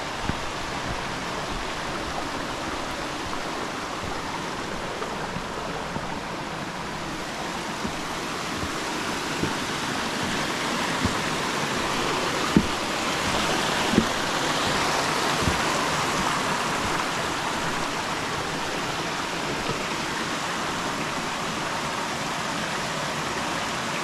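Mountain stream rushing, a steady water noise that swells a little toward the middle, with a couple of sharp knocks about halfway through.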